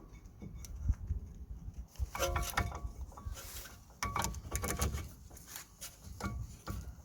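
Metal clinking and scraping as brake caliper parts and pads are worked into place by hand. There are sharp clicks throughout and two ringing bursts of clatter, about two and four seconds in.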